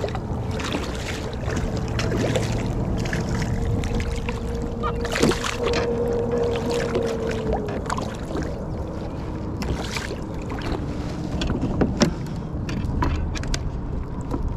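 Water sloshing and splashing against a fishing kayak, with scattered sharp knocks and clicks, while a hooked bluefish is played on the line. A faint steady whine runs through the first half and fades out about halfway.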